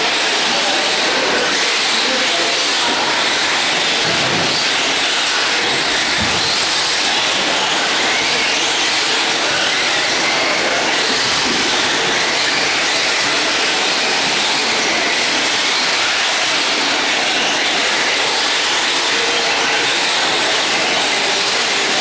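Several radio-controlled cars racing on a dirt track, making a steady, high-pitched whirring of motors and tyres.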